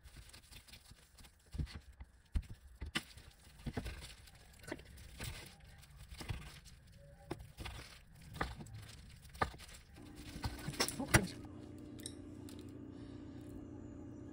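Kitchen handling sounds from rolling gimbap in a bamboo sushi mat and slicing the roll with a knife on a wooden cutting board: scattered clicks and knocks, the sharpest a little past the middle. About two-thirds of the way in, a steady low hum sets in.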